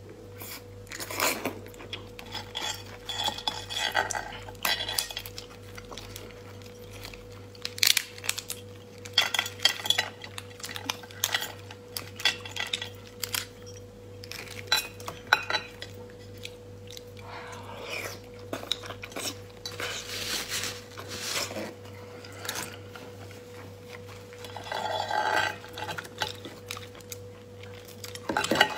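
Langoustine shells cracking and clicking as they are pulled apart and peeled by hand, in many short sharp bursts with eating noises between them, over a faint steady hum.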